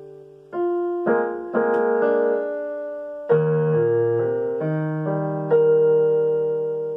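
Digital keyboard on a piano voice playing a slow pasillo: sustained chords struck about six times at uneven intervals, each fading away before the next.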